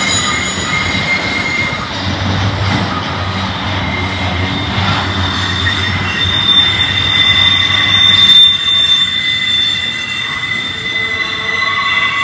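Intermodal freight train's well cars rolling past at close range: a steady rumble of steel wheels on rail with a high, steady wheel squeal that grows louder partway through.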